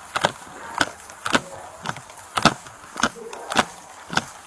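Footsteps at a steady walking pace, about two sharp steps a second, picked up by a police officer's body-worn camera.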